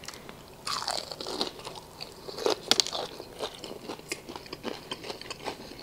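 Close-up biting into crispy fried chicken and chewing it: crackly crunches of the fried coating, loudest and sharpest about halfway through, then softer chewing crunches.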